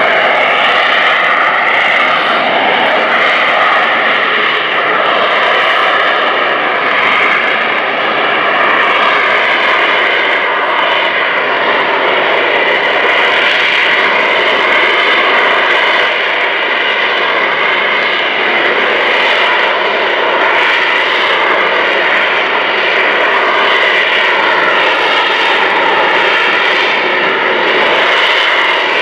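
An AV-8B Harrier II's Rolls-Royce Pegasus turbofan running steadily at high power: a loud jet roar with several wavering whining tones, holding level with no pass-by rise and fall.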